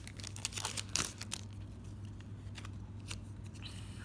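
Foil Pokémon card booster pack crinkling and crackling as it is handled and opened, the crackles densest in the first second and a half and sparser after, over a low steady hum.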